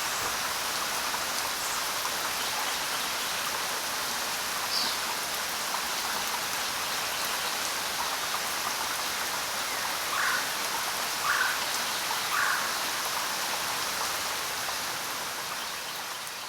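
Heavy rain falling steadily in a forest. A single short, high bird chirp comes about five seconds in, and three short, lower calls follow about a second apart in the middle. The sound fades near the end.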